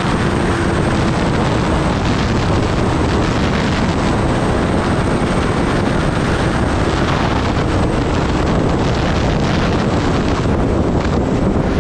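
Loud, steady rush of wind on the microphone of a Kawasaki Ninja ZX-10R sport bike running at highway speed, with the motorcycle's engine humming faintly underneath.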